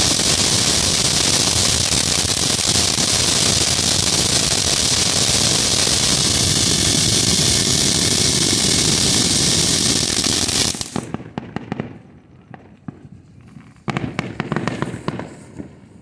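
Phantom Fireworks Crown Jewel fountain spraying sparks with a steady loud hiss that cuts off suddenly about eleven seconds in. After it, scattered firework crackles and pops.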